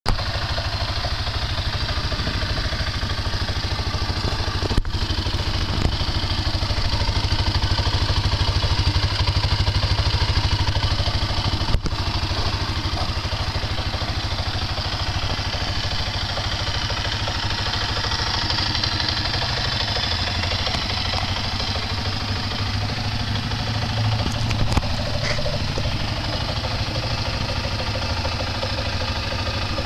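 2010 Arctic Cat 650 ATV engine idling steadily, with a couple of sharp clicks about five and twelve seconds in.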